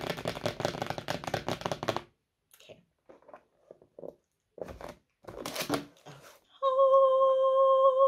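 Fingernails drumming rapidly on the top of a cardboard camera box as a drum roll, followed by a few light taps and rustles as the box is handled and opened. Near the end a woman's voice holds one long steady note.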